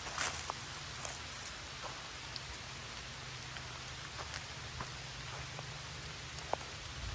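Steady rain falling, an even hiss with scattered sharp drops ticking close by.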